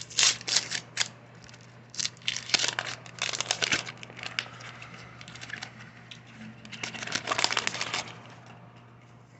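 Wax-paper wrapper of a 1984 Fleer baseball card pack being torn open and crinkled, in four spells of crackling with short pauses between, over a faint steady hum.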